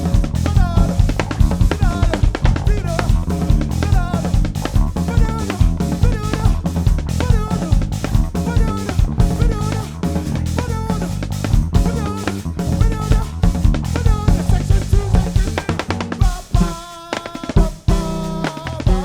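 Live band music: a drum kit keeping a steady beat over bass, with a wavering melodic line above. About three seconds from the end the beat breaks off into held chords punctuated by single drum hits.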